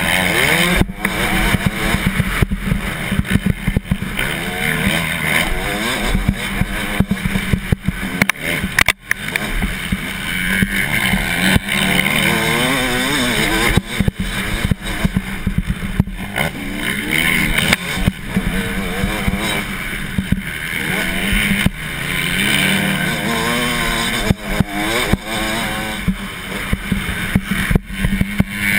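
Motocross bike engine running hard at racing speed, its pitch rising and falling as the rider works the throttle and gears, heard through the rider's helmet camera. The sound drops out briefly about nine seconds in.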